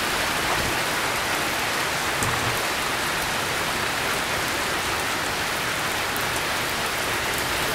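Heavy rain pouring down onto a paved parking lot and parked cars, a steady, even hiss.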